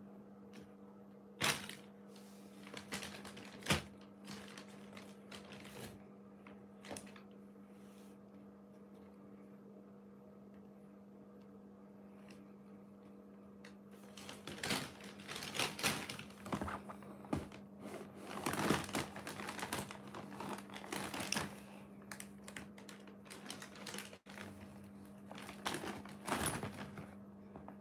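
A thin clear plastic bag crinkling and rustling in irregular bursts as a cat paws at it and a wand toy is pushed around inside it. It is sparse at first, almost still for several seconds, then busy through the second half. A steady low hum runs underneath.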